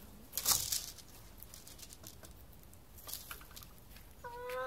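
A hen hopping through a hula hoop: a sharp rustling flurry about half a second in, as her wings and feet work, then lighter rustles and scratches on the wood-chip floor. Near the end comes one short, slightly rising hen call.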